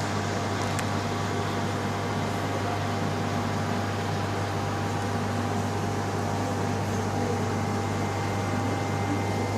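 Steady low hum with a hiss over it from running aquarium pumps and filtration equipment, unchanging throughout.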